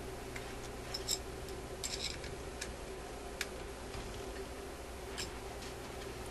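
Irregular small metallic clicks and taps as a screwdriver and fingers work a shim into the loose mounting of a Seeburg jukebox Tormat selector, the sharpest about a second in and near the middle. A steady low hum runs underneath.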